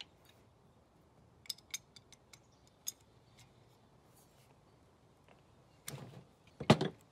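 Metal wrenches clicking and clinking against hydraulic hose fittings as they are tightened. A few light, sharp taps in the first few seconds, then louder clanks near the end.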